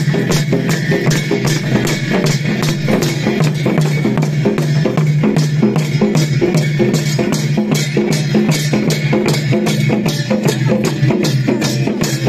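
Sakela dance music on barrel-shaped dhol drums and jhyamta hand cymbals, beaten in a steady, even rhythm.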